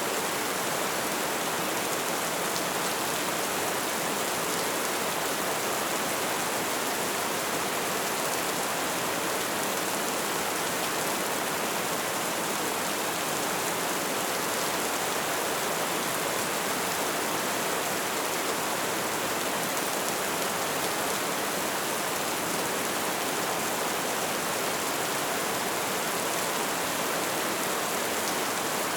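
Light rain falling steadily, an even hiss of many small drops with no single drop standing out.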